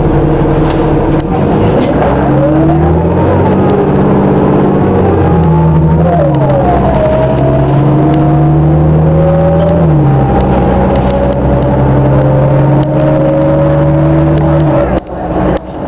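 City bus engine and transmission heard from inside the bus as it drives, the engine note shifting up and down in steps with a whine gliding up and down above it. Near the end the engine note drops away and a few knocks are heard.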